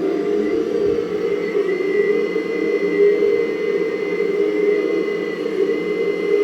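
Metal 1/12 scale RC hydraulic excavator running: a steady mechanical hum with a thin high whine that rises slightly about a second and a half in, holds, and drops back near the end.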